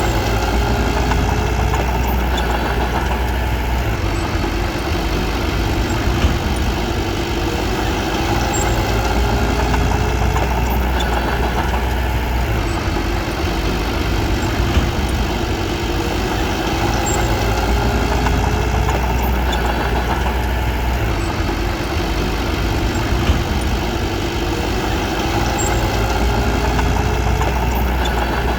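Diesel engine of a small crawler bulldozer running steadily. Its sound eases and builds in a loose repeating cycle every several seconds, with a few light clanks.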